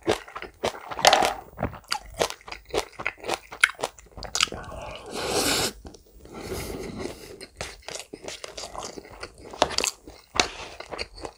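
Close-miked chewing of a chicken mayo rice bowl: quick wet mouth clicks and crunches, over and over.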